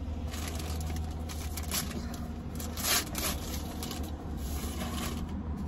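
Scrapes and rustles of hands handling food and a cardboard fast-food box, with sharper crackles about two and three seconds in, over the steady low hum of a parked car running.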